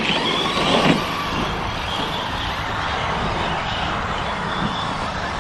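Electric 1/10 RC short-course trucks racing on a dirt track, a motor whine gliding up and down near the start over a steady noisy background.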